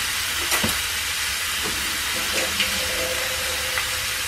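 Ground meat frying in a pot on the stove, a steady sizzling hiss, with a few light clicks and knocks about half a second in and once or twice later.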